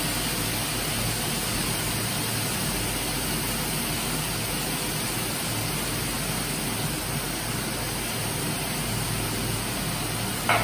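Steady sizzling hiss of sliced mushrooms and capsicum frying in oil in a steel pan over a medium gas flame, with a faint low hum underneath.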